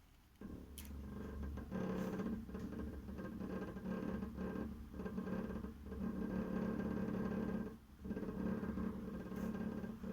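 Hot-water heating radiator making a pitched, buzzing hum that keeps cutting out for a moment and starting again, several times over.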